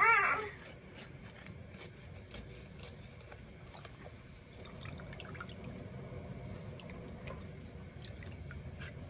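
A child's short wavering cry or babble right at the start, then faint scattered pops and drips over a low steady hiss, like a pot of stew simmering.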